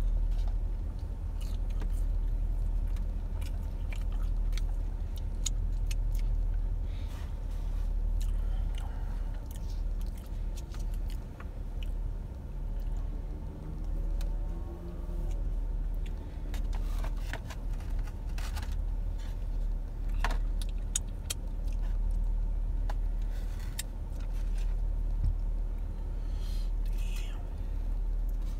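Chewing of fried chicken fingers and scattered clicks from handling a plastic sauce cup and styrofoam food box, over a steady low rumble from the car running inside the cabin.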